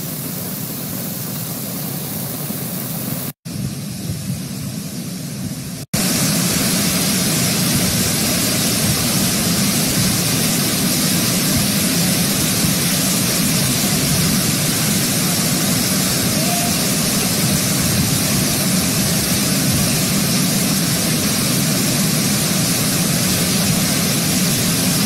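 Steady rush of floodwater, louder after a brief dropout about six seconds in: storm water spewing up out of a street drain, which is taken for drainage backed up by intense rain or a burst water main.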